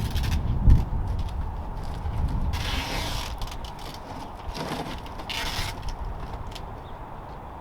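Mechanical clicking and rattling, with two short bursts of hiss, about two and a half and five seconds in.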